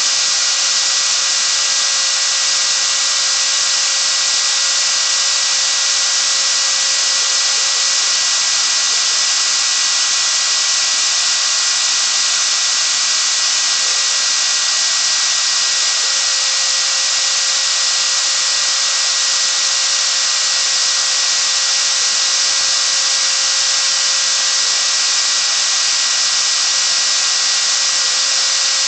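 Homemade CNC router's spindle running at high speed, its engraving bit milling traces into a copper-clad circuit board: a steady, high-pitched whine with a hiss.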